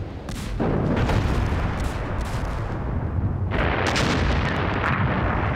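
Artillery fire and explosions: repeated blasts over a continuous low rumble of battle. About three and a half seconds in, the noise grows harsher and fuller.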